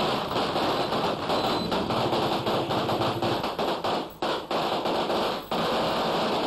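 Strings of firecrackers exploding in a rapid, dense crackle of bangs, with two brief dips in the second half.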